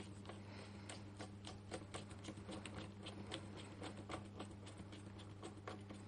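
Faint, irregular small clicks and taps, several a second, from hands handling the laptop's plastic chassis and internal cables and parts, over a steady low hum.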